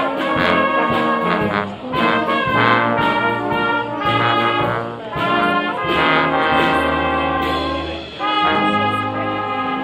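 Brass instruments playing a slow tune of held notes in phrases, with short breaks about two, five and eight seconds in.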